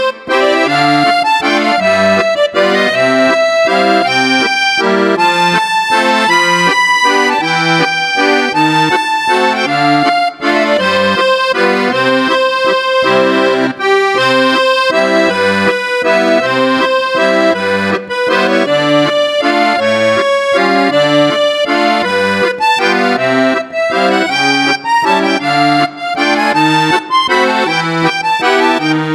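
Background music: a melody over a steady, regular accompaniment of bass notes alternating with chords.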